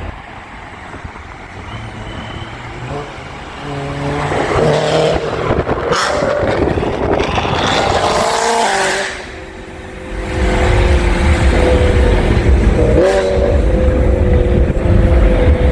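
BMW M3 E92's naturally aspirated V8 with an aftermarket exhaust, pulling up through the revs with a rising note, then running loud and deep after a brief drop, with a short blip of the throttle about two-thirds of the way in.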